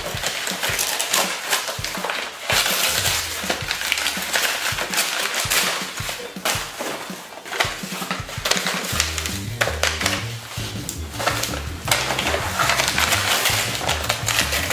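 Tissue paper rustling and crinkling as a present is pulled out of a gift bag, over light background music whose bass line comes in about halfway through.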